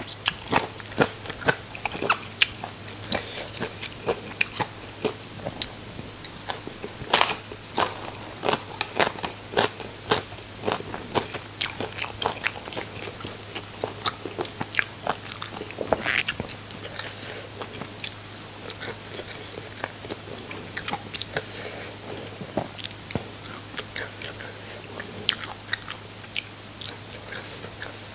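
Close-miked biting and crunching while chewing crispy deep-fried food, the crunches coming thick and fast for the first half and more sparsely later.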